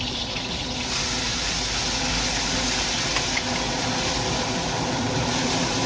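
Gas wok burner running steadily under a hot wok, with oil sizzling in the wok; the hiss grows louder about a second in.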